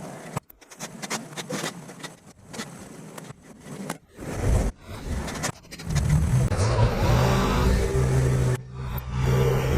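Irregular crackling and scraping noises, then from about six seconds in an engine running steadily at a low, even pitch.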